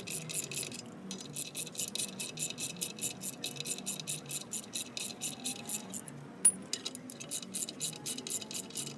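Ratchet wrench clicking rapidly, about six clicks a second, as it backs out the bolts threaded into the brake drum. It pauses briefly twice, and a single sharp metal clink comes about six and a half seconds in.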